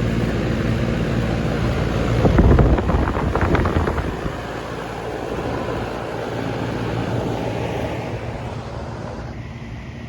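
A 2011 Goodman three-ton air-conditioning condenser running, its compressor giving a steady low hum under the rush of the outdoor fan. About two seconds in, a louder, rough rush of wind noise on the microphone lasts for a couple of seconds.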